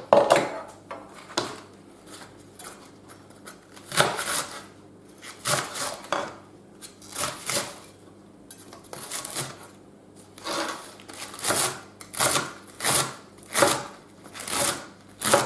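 Kitchen knife chopping a leek on a cutting board: sharp strokes, spaced unevenly at first, then settling into a steady rhythm of about three strokes every two seconds.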